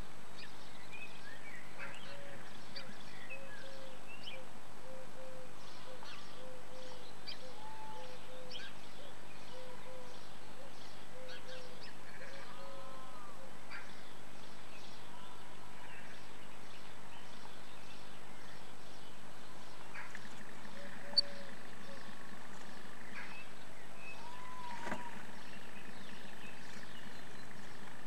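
Steady hiss and hum from the nestbox microphone, with faint bird calls from outside: a short note repeated about twice a second for around ten seconds, and scattered chirps. Occasional small clicks and rustles come from the swifts shifting on the nest material, one sharper click about two-thirds of the way through.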